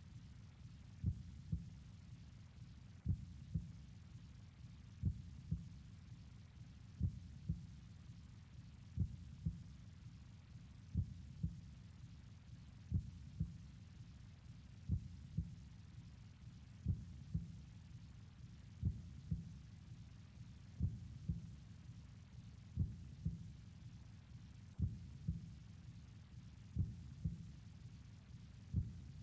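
Deep, slow thumps in pairs, one pair about every two seconds, like a heartbeat: a low pulse in the accompaniment to a stage tango.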